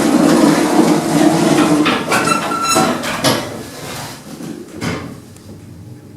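1960s Marriott Scott lift, its doors sliding shut with a rumble and several clunks, a brief tone around two seconds in, then a quieter hum as the car runs.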